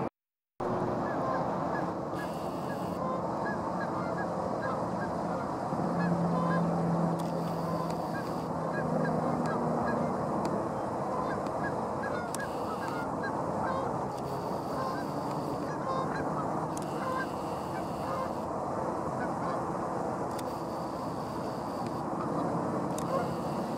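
A flock of Canada geese honking, many calls overlapping without a break, after a split-second gap at the very start.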